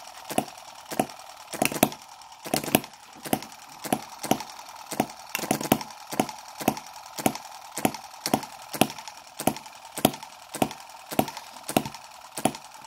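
Microcosm M17 1.6cc model hit-and-miss engine running, a sharp pop about twice a second with coasting between, over a faint steady hum. Its mixture needle is being turned to richen the fuel mixture.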